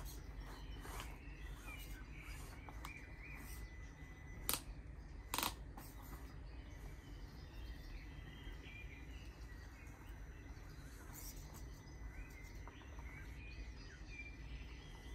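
Faint outdoor background with small birds chirping and a thin steady high tone, broken by two sharp clicks about a second apart near the middle.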